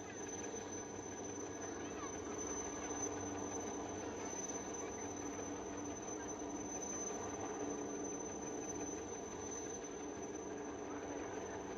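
Insects chirring in one steady high tone, over a faint low background murmur.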